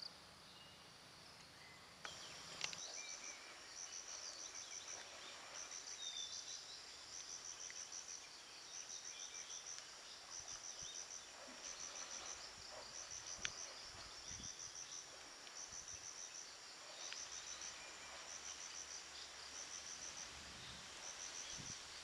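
An insect chirping high and faint in short pulsed trills, about one trill a second, starting a few seconds in.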